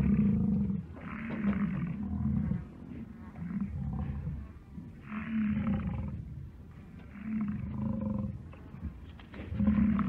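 Buffalo calling: a series of low, grunting bellows, each about a second long, repeating with short gaps.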